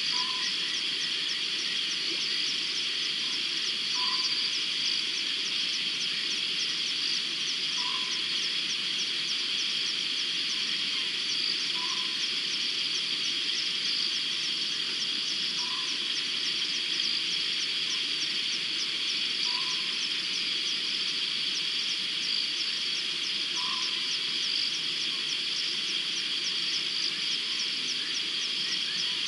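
Night chorus of frogs and insects: a dense, steady, high-pitched trilling, with one short lower call repeating about every four seconds.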